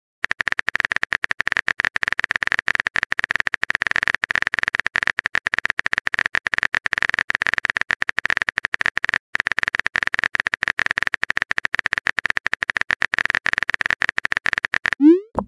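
Rapid, steady keyboard-typing clicks from a texting-app typing sound effect, pausing briefly about nine seconds in. Near the end a short rising pop sounds as the message is sent.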